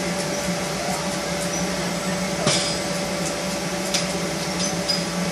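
Steady electric machine hum from a mechanical bull ride's motor and air blower running, with a few brief light knocks, one about halfway through and another a little later.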